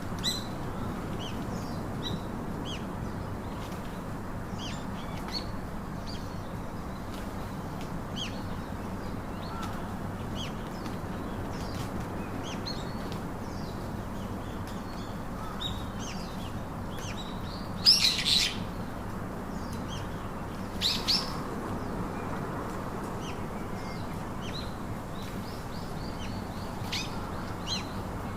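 Small birds chirping, many short high calls scattered throughout, with two louder bursts of calls about two-thirds of the way through, over a steady low background hum.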